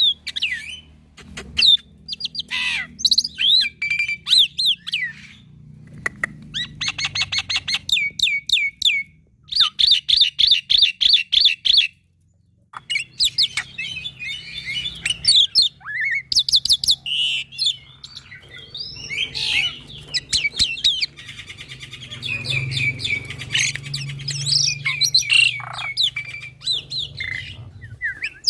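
Young black-winged myna singing a varied song: fast trains of repeated chirps, gliding whistles and harsh squawks, with a brief pause about twelve seconds in.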